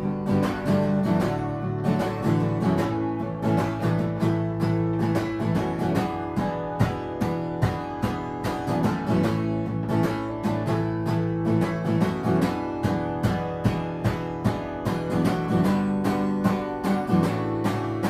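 Acoustic guitar strummed in a steady rhythm, an instrumental passage with no singing between verses of a song.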